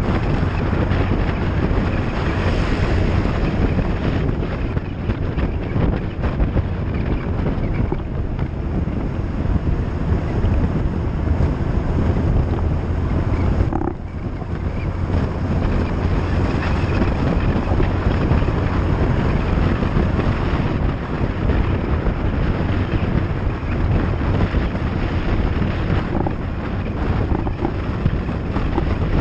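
Steady rush of wind on a GoPro microphone on a moving vehicle in the rain, with road and engine noise underneath; it drops briefly about halfway through.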